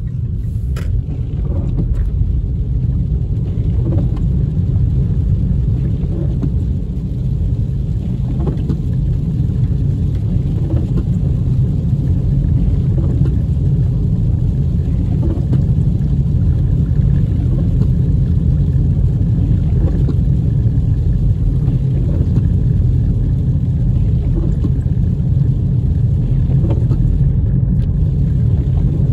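Steady low rumble of a car driving on a wet road, heard from inside the closed cabin.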